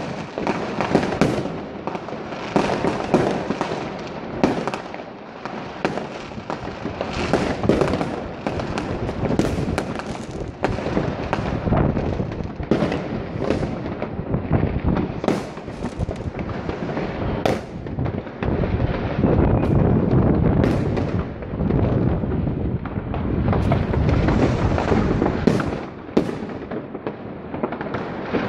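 Fireworks and firecrackers going off in a dense, continuous barrage: many overlapping sharp bangs and crackles with no break.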